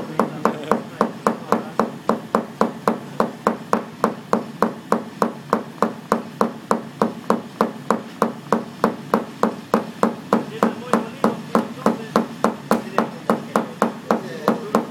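Paintless dent repair tap-down work: a hammer striking a knockdown tool against the car's sheet-metal panel in rapid, even taps, about three or four a second. This knocks down the crown and high spots around the dent to release tension in the metal.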